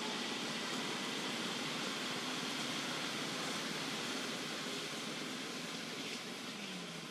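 Steady outdoor background hiss with a faint high, even band in it and no distinct events, fading slightly near the end.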